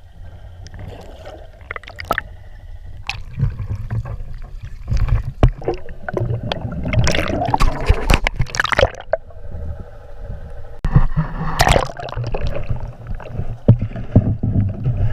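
Water gurgling and sloshing around an underwater camera held below the surface, with a constant low rumble, repeated sharp knocks and two louder rushes of churning water.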